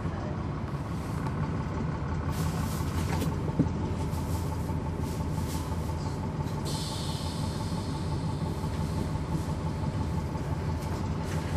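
Cummins ISL9 diesel engine of a NABI 40-SFW transit bus running steadily, heard from on board with the climate-control system off. A sharp knock comes about three and a half seconds in, and a hiss just past halfway lasts about a second and a half.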